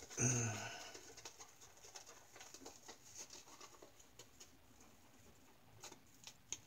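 A shaving brush with a synthetic knot working lather over the cheek and neck: faint soft swishes and scrapes repeating. A short low hum, like a voice, comes right at the start and is the loudest sound.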